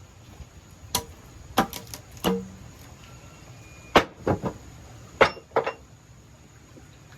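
A series of sharp knocks and taps, about a dozen, coming irregularly in small clusters of two or three.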